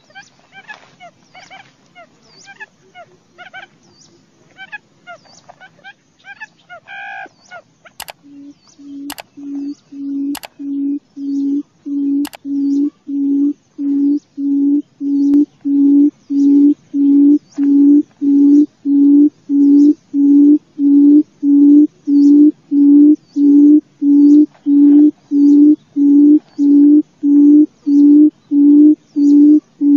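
Barred buttonquail giving its low booming call: evenly spaced hoots, about three every two seconds, that swell in loudness over several seconds and then hold steady. Before the booming starts there are scattered short high chirps and a few sharp clicks.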